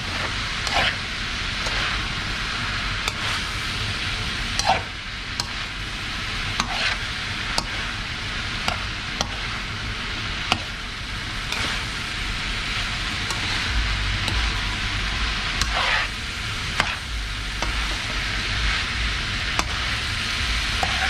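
Diced meat and carrots for bopis sizzling in a large metal wok while a metal spatula stirs them, with irregular clicks and short scrapes of the spatula against the pan.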